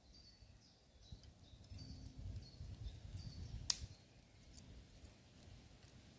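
A small bird chirping, short high notes repeated every fraction of a second, over a low rumble that swells in the middle. One sharp snap about three and a half seconds in.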